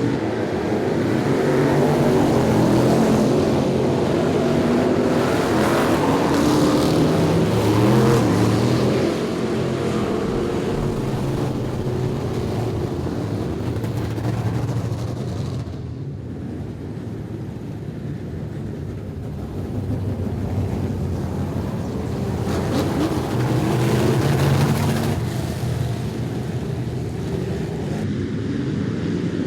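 Street stock race cars running at speed. Their engines swell and fade as the field goes by, quietest a little past halfway.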